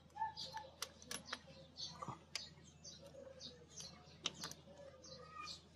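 Faint scattered clicks and light taps of fingers and small metal parts on a motorcycle engine as the timing chain tensioner is fitted and snugged up, with short high chirps in the background.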